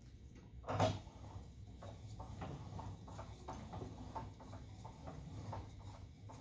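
Mystic Smokers hand-cranked door band roller bending 1/4-inch-thick, 2-inch-wide steel flat bar: one sharper metal clank just under a second in, then light, regular knocks, about three a second, as the crank is turned and the bar feeds through the rollers.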